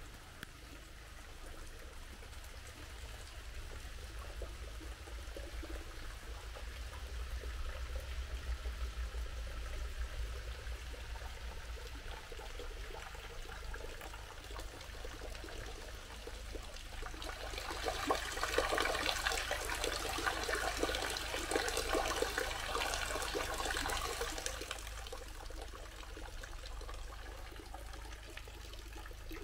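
Water trickling and pouring, growing to a louder splashing for several seconds a little past the middle before settling back to a trickle.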